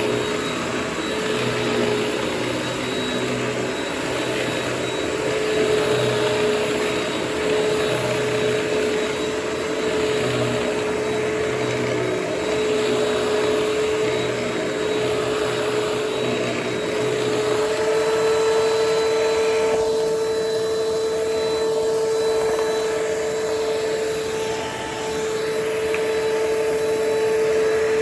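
Hoover Platinum Collection WindTunnel bagless upright vacuum cleaner running, a steady motor whine over rushing air. Its pitch rises slightly about two-thirds of the way through.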